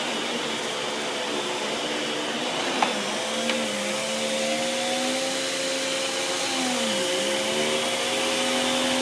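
Eureka 6833B Boss canister vacuum running with its flat-belt power head, a steady motor whine with lower tones that dip briefly in pitch twice, and a couple of small clicks about three seconds in.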